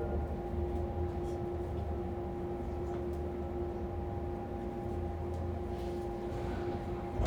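Interior of a Fukuoka City Subway 2000-series car standing with its doors shut before departure. There is a steady hum of the train's onboard equipment, a low rumble under a couple of held tones. A sharp click comes right at the end.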